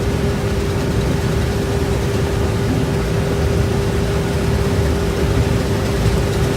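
Combine harvester running steadily while harvesting corn: a constant engine and machinery rumble with a steady whine held at one pitch.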